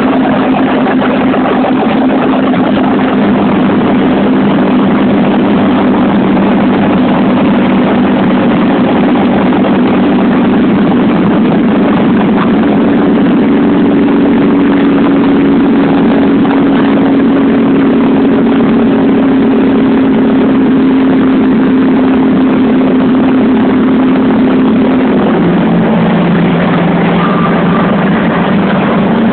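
Vehicle engine droning steadily at cruising speed, heard from inside the cabin over road and wind noise. Near the end the engine note drops lower.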